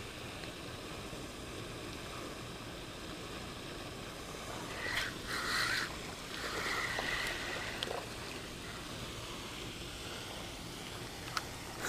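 Steady outdoor background hiss at the edge of a pond, with a few brief, louder rustling and whirring sounds around the middle.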